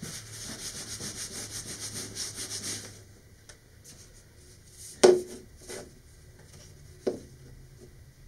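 Paper towel rubbed briskly in quick, even strokes for about three seconds, wiping wood glue off fingers. Then quiet handling, with two knocks on the workbench about two seconds apart, the first the louder.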